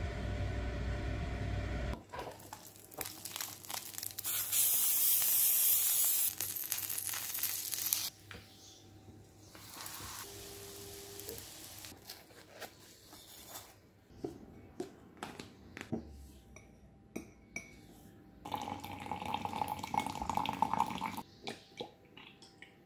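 A run of kitchen sounds: a loud hiss for about two seconds, a short beep, light clicks of plastic tongs against a waffle iron, and liquid pouring into a glass near the end.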